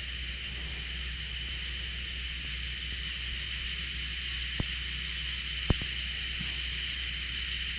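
Night chorus of crickets and other insects: a steady high-pitched trill, with a fainter higher chirp repeating every couple of seconds. Two sharp clicks stand out a little past the middle.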